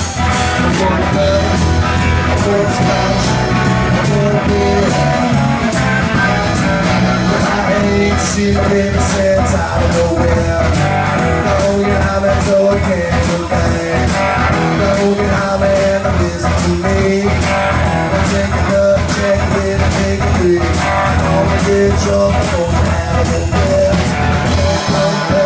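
Live blues-rock band playing: amplified electric guitar over a drum kit, with a singer's voice in places.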